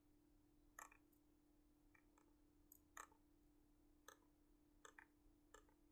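Faint computer mouse clicks, about ten scattered irregularly and some in quick pairs, as text is selected and ribbon buttons are clicked, over a faint steady hum.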